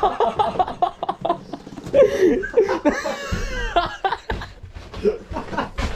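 Men laughing in several voices, with a few sharp knocks in between.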